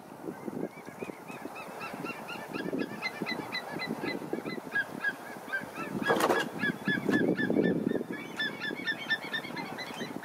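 Birds calling: a fast, continuous series of short high yelping notes, several a second, starting about a second in. Underneath runs an uneven low rumbling noise, with one knock about six seconds in.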